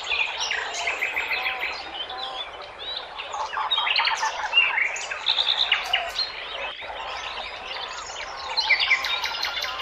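A chorus of several birds chirping and trilling, with many short calls overlapping.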